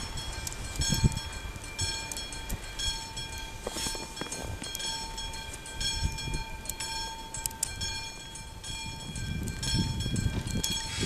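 Electric locomotive hauling a train slowly, with a steady high whine made of several stacked tones that fades out about three-quarters of the way through. Scattered clicks sit over a low rumble that grows louder near the end as it comes closer.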